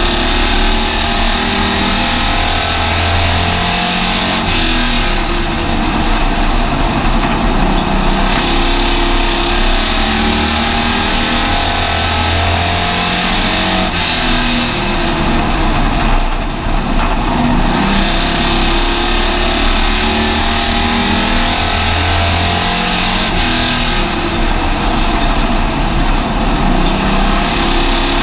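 Hobby stock race car's engine heard from inside the car at racing speed, loud throughout, its pitch rising and falling over and over as it accelerates and lifts around the oval.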